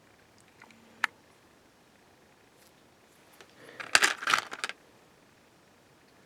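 Handling noise from a resin model kit and its packaging: a single sharp click about a second in, then a brief burst of crackling and rustling near the middle.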